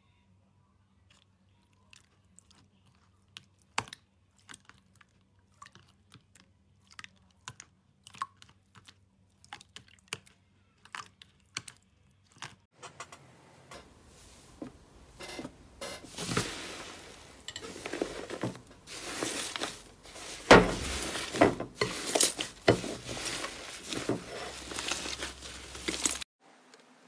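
Slime handled by hand, with no music. First come sparse, faint pops and clicks as a clear purple slime is pressed. About halfway through it gives way to louder, dense crackling and crunching as a blue iceberg slime's dried crust is pressed and squeezed, and this stops abruptly near the end.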